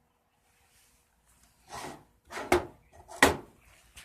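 Homemade wooden mallets being handled and knocked against wood: a soft scrape, then two sharp wooden knocks a little under a second apart.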